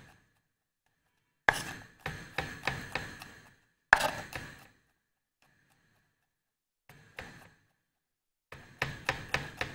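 Kitchen knife chopping garlic cloves on a wooden chopping board: runs of quick knocks of the blade on the board, in four spells with short pauses between them.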